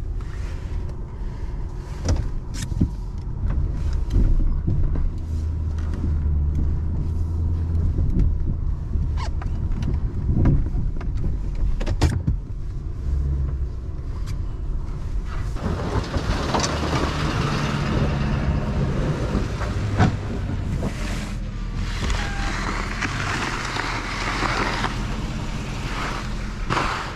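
2009 Ford F-250 pickup running while plowing snow, a steady low engine rumble with scattered knocks and clunks. About sixteen seconds in, a loud rushing noise joins it and carries on.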